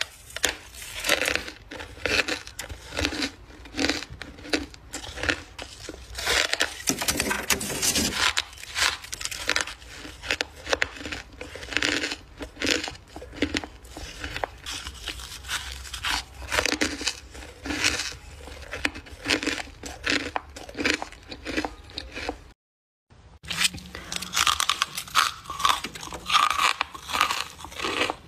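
Chunks of freezer frost crunched and chewed between the teeth: a dense, continuous run of crisp crunches, several a second, broken once by a brief silent cut about 23 seconds in.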